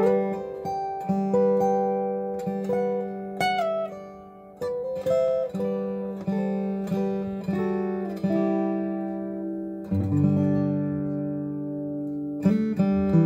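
Boucher SG-152-BMV acoustic guitar (red spruce top, Madagascar rosewood body) flatpicked with a Bluechip TP48 pick, playing a melody of single notes that ring out. About ten seconds in, a fuller chord with ringing bass notes is struck.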